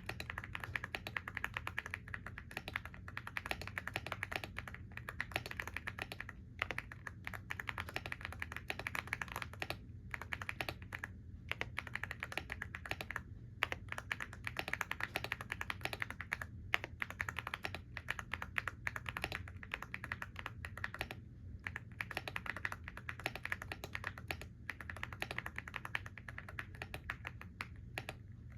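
Computer keyboard being typed on continuously: a rapid, dense stream of key clicks, broken by a few brief pauses.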